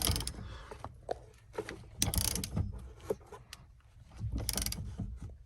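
Hand ratchet wrench clicking in several short bursts of rapid clicks as it tightens the nut that holds a quick-release steering wheel hub onto the steering shaft.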